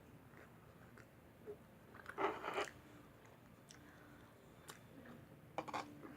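Close-miked chewing and mouth sounds of someone eating, mostly faint. There is a louder bite-and-chew cluster a little over two seconds in and another shortly before the end.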